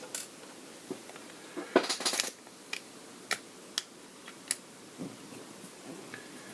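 Small repair tools clicking and scraping on a cracked iPad screen. A quick cluster of sharp clicks about two seconds in is the loudest part, followed by single clicks every half second or so.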